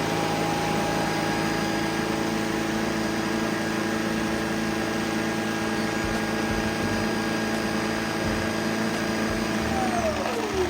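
Shark AI Robot Self-Empty XL base evacuating the robot vacuum's dustbin: a steady motor whine over a rush of suction. About a second before the end the motor spins down, its pitch falling away.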